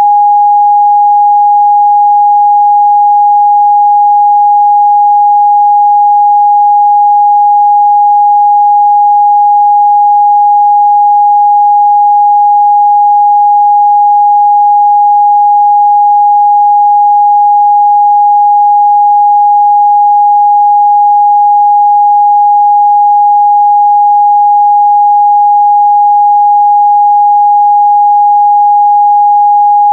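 Continuous 824 Hz sine-wave test tone, a single pure pitch held steady at a constant loud level.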